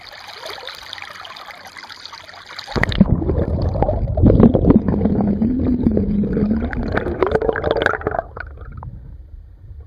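Light lapping of loch water at the surface, then about three seconds in the camera plunges underwater: loud, muffled rushing and gurgling of water around the camera, with the high sounds cut off and a wavering tone through it. It eases off a little near the end.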